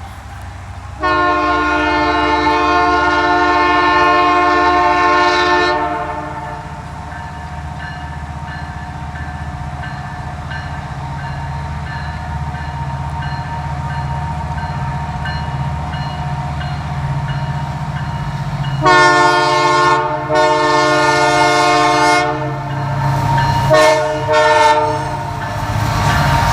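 Canadian Pacific Holiday Train's diesel locomotive air horn blowing. One long blast starts about a second in and lasts about five seconds. After a stretch of the train's low rumble, more blasts come near the end: two longer ones, then two short ones.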